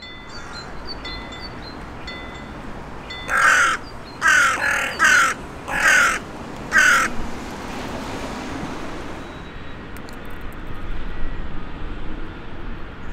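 Crows cawing: a run of six caws in quick succession, starting about three seconds in and ending about four seconds later.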